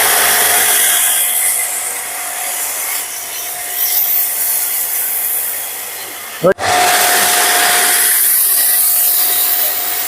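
Hotstarr HS 155 electric pressure washer running with its foam cannon spraying: a loud, steady rushing hiss over the motor's low hum. It cuts out for an instant about six and a half seconds in, then starts again.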